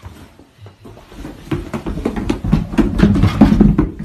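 A large dog bounding up carpeted stairs, its paws landing in a rapid run of heavy thumps that starts about a second in and grows louder toward the end.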